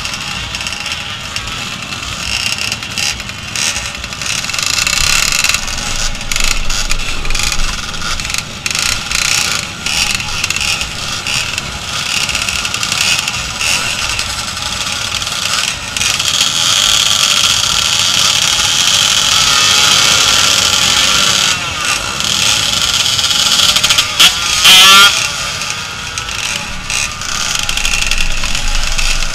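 Motorcycle engines running amid the chatter of a crowd of spectators, with one brief, very loud burst a little before the end.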